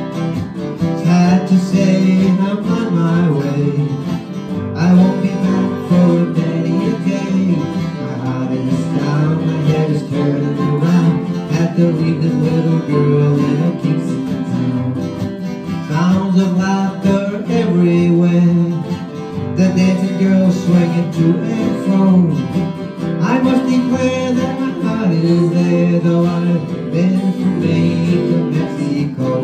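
Small live acoustic band playing an instrumental break of a calypso-style folk song: strummed acoustic guitars carry the rhythm under a melodic lead line.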